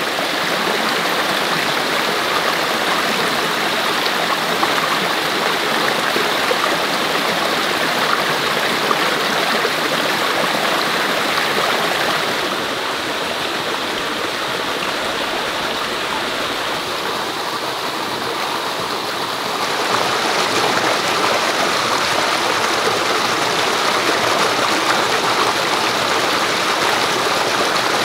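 Steady rush of flowing stream water, a little quieter for a stretch in the middle before rising again.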